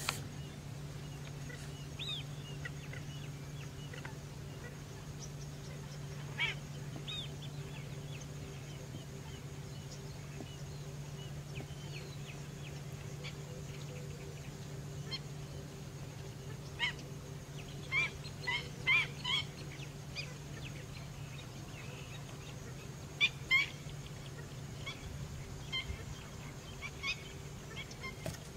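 Wetland birds giving short, scattered calls, with a quick run of about five calls past the middle and a pair near the end, over a steady low hum.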